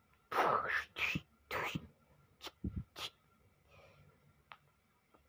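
A boy's mouth-made sword-slash sound effects: three short hissing whooshes in the first two seconds, then a few sharp clicks and soft thumps.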